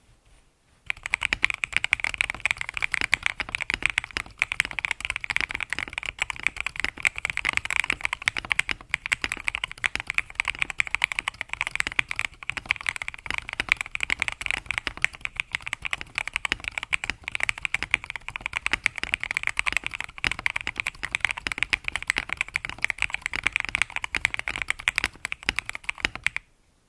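Continuous fast typing on an Epomaker Mini Cat64 mechanical keyboard with linear switches, a dense run of keystrokes that starts about a second in and stops shortly before the end.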